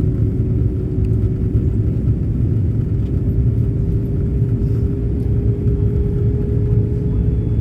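Airbus A330 passenger-cabin noise on the approach: a steady low rumble of engines and airflow, with a steady hum that creeps slightly up in pitch.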